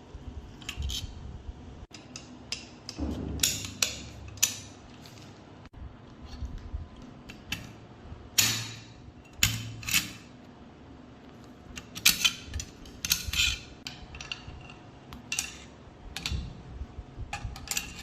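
Metal gun parts being handled and fitted: irregular clicks, clinks and light knocks, some briefly ringing, with low handling noise between them.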